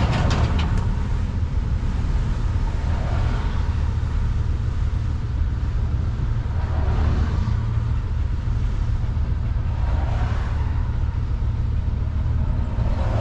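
Class A motorhome's engine idling with a steady low rumble while other vehicles pass close by, each one swelling up and fading, about four of them.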